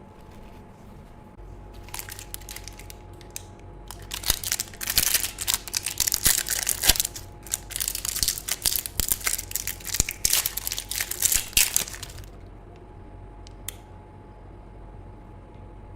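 Close-miked crunching as crispy grilled beef large intestine (daechang) is bitten and chewed, a dense run of crackling crunches that starts about two seconds in, grows thick, and stops a few seconds before the end. A single sharp click follows.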